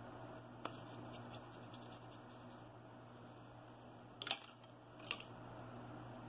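Faint steady hum with a few light clicks: one a little under a second in, then two sharper ones about four and five seconds in, as small clay-modelling tools are handled and set down on the work table.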